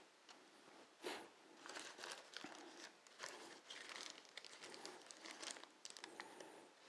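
Faint crinkling of crumpled baking paper and soft scrapes of a silicone spatula spreading thick cheesecake batter in a paper-lined pan, in scattered short rustles with a sharper one about a second in.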